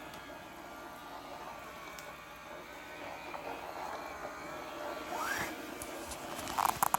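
Vileda ViROBi robot vacuum cleaner running with a steady motor hum. There is a short rising sound about five seconds in and a rapid string of short pulses near the end.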